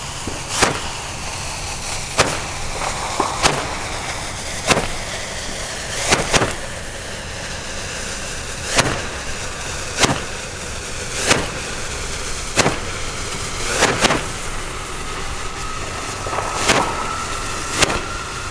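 A handheld roman candle firing its stars one after another: a sharp pop about every second and a bit, about a dozen in all, over the steady hiss of the burning charge.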